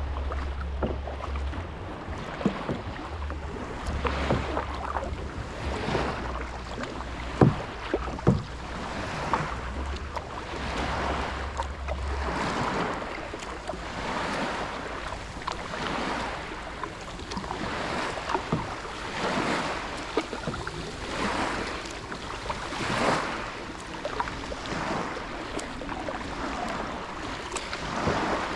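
Kayak paddle strokes: a splash of water about every one and a half seconds in a steady rhythm. Wind rumbles on the microphone for about the first twelve seconds, and there are two sharp knocks about a quarter of the way in.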